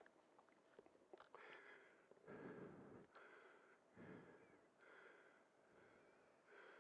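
Near silence with faint breathy puffs close to the microphone, about one a second from about two seconds in.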